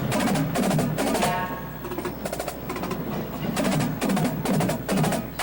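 Indoor percussion ensemble playing: rapid drum strokes throughout, with a ringing pitched chord about a second in.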